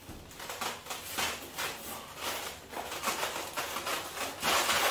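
Plastic wrapping bag rustling and crinkling, with the foam packing cap scraping against it, as the packaging is worked off a boxed air compressor. The rustling comes in uneven bursts and is loudest near the end.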